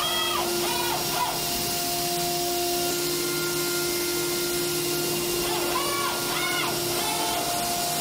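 CNC machining centre milling an aluminium cylinder head. A steady spindle tone runs over a hiss of cutting. Short whines rise and fall in pitch about a second in and again near six seconds in.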